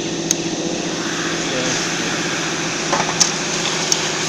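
Steady electrical hum of running welding machinery, broken by a few short sharp clicks from buttons being pressed on its control pendant.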